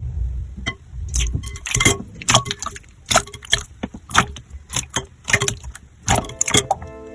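Slime being pressed and squeezed by hand, giving an irregular run of sharp wet clicks and pops. Music comes in about six seconds in.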